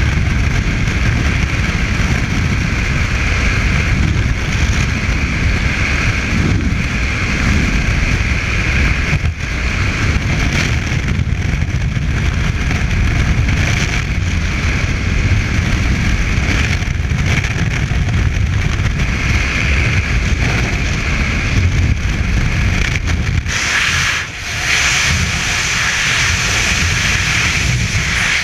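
Freefall wind rushing over a helmet-mounted camera's microphone: a loud, steady roar that dips briefly a few seconds before the end.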